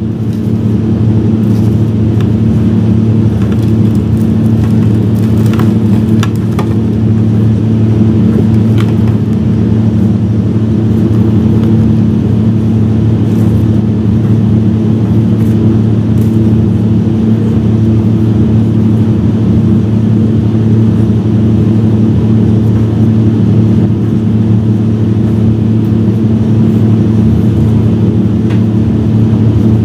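A loud, steady low machine hum, unchanging throughout, with a few faint clicks over it.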